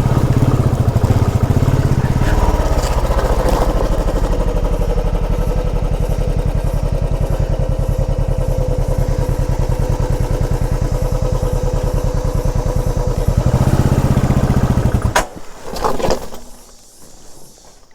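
Motorcycle engine running as it is ridden over a rough off-road trail, getting louder shortly before it cuts off abruptly about fifteen seconds in; a few short knocks follow.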